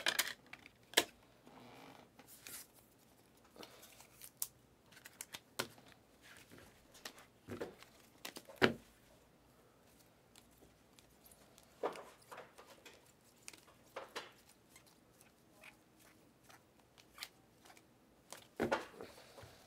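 Stack of trading cards in plastic top-loaders and sleeves being handled and flipped through, giving scattered short clicks and rustles of plastic.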